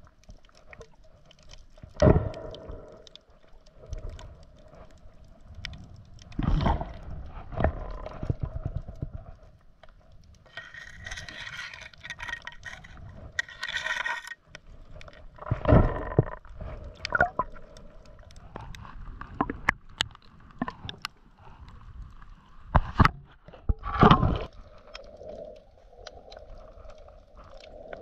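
Water sloshing and gurgling around the microphone while snorkel-diving in shallow water, with a hissing stretch midway and several sudden loud thumps.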